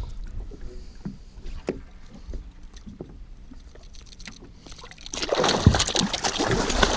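A small northern pike thrashing and splashing at the water's surface while held by the jaw with pliers. The splashing starts suddenly about five seconds in, after a few faint clicks.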